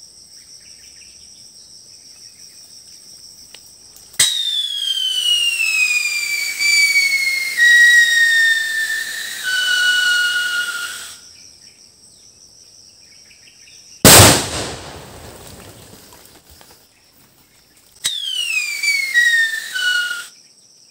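Whistling tube firecracker shrieking: a loud whistle that falls in pitch in steps for about seven seconds, then a single sharp bang, the loudest sound, about ten seconds in, then a shorter falling whistle near the end. Insects buzz steadily at a high pitch before the whistle starts.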